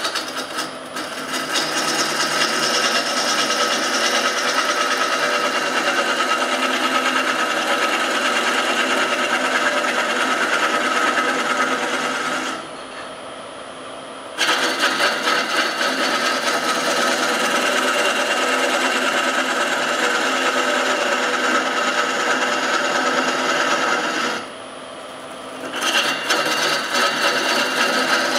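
A turning tool cutting a spinning oak blank on a wood lathe: a steady rasping cut. The cut breaks off twice for a second or two, leaving only the quieter run of the lathe, then bites in again.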